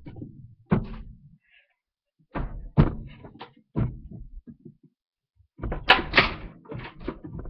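Handfuls of clothes being pushed down into a top-loading washing machine tub, with knocks and bumps against the machine close to the microphone, in several separate bursts.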